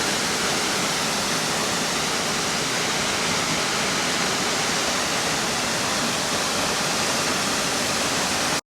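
Waterfall pouring down rocks: a steady, loud rush of falling water, which cuts off suddenly near the end.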